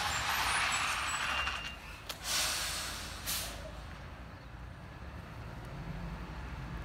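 Rubbish truck standing with its engine idling low, letting air hiss out of its air brakes. A long hiss dies away just before two seconds in, followed by two short, sharp bursts about a second apart.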